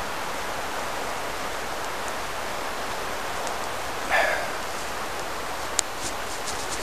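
Steady outdoor hiss, with a short rustle about four seconds in and a sharp click near six seconds, followed by a few faint clicks.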